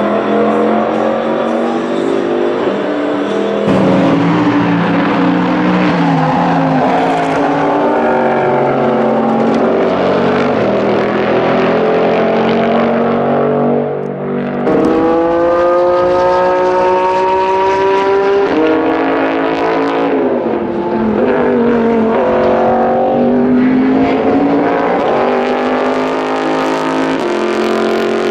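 Toyota Supra GT300 race car's 3.4-litre V8 under hard acceleration. The engine note climbs in pitch through each gear and drops sharply at every shift, several times over.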